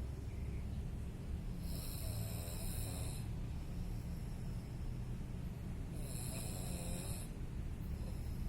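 A sleeping person snoring: two long, hissy breaths about four seconds apart over a steady low rumble.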